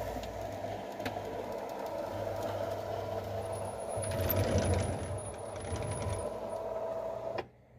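A sliding window rattling and rumbling open in its track about four seconds in, over a steady mechanical hum. The sound cuts off suddenly shortly before the end.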